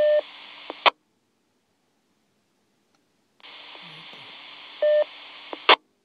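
Linked FM amateur repeater system heard through a VHF mobile radio after unkeying: a low hiss with a short courtesy beep, cut off by a squelch-tail burst about a second in, then silence. About three and a half seconds in the hiss returns for a brief transmission, with another short beep and a squelch burst near the end.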